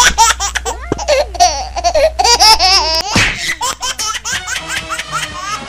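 Rapid, high-pitched laughter in quick repeated bursts.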